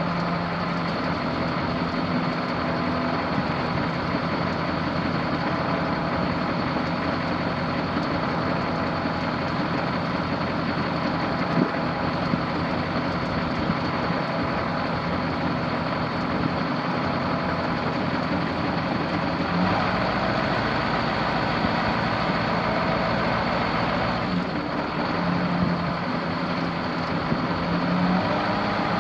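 A 1989 Chevrolet C7500 truck's eight-cylinder diesel engine running steadily with a thin steady whine over it. Its note shifts for about five seconds, roughly two-thirds of the way through.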